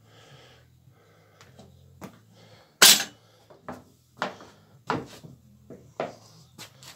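A series of about five sharp metal knocks and clanks of an engine block and parts being handled on an engine stand, the loudest a little under three seconds in, each with a short ring.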